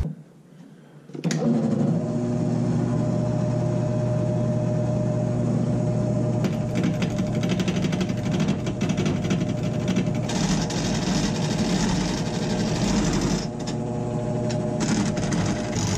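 Wood lathe motor starting about a second in and running at a steady hum while a square wooden blank spins. From about six seconds a hand-held turning tool cuts into the spinning wood, giving a rough, rasping cutting noise that is loudest for a few seconds past the middle.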